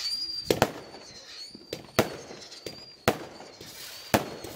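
Dr Thrust 25-shot firework barrage cake firing its shots one after another: sharp bangs about once a second, the first two close together, with a thin high whistle running underneath.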